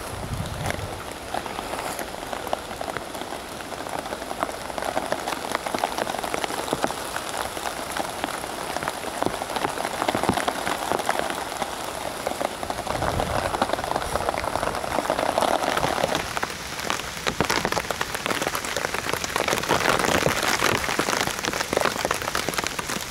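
Steady rain pattering on a survival-blanket shelter: a dense rush of tiny drop taps that swells and eases.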